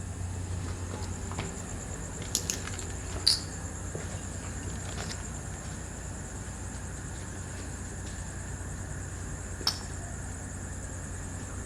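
Steady high-pitched chirring of crickets, with a low hum underneath. A handful of sharp clicks or taps cut through, the loudest about three seconds in and another near the end.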